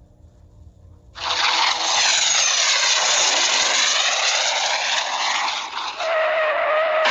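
Cartoon sound effect: a loud rushing hiss that cuts in suddenly about a second in, with a swirling, sweeping sound like a jet or a skid. It dips briefly near six seconds, then starts again with a steady whistling tone over the rush.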